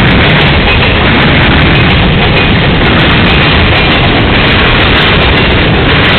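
Freight cars of a long train rolling past close by: a loud, steady rush and rumble of wheels on the rails.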